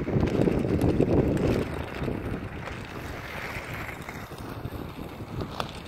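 Wind rumbling on the microphone, strongest in the first second and a half, over the rolling of inline skate wheels on an asphalt rink. A few short clicks come near the end.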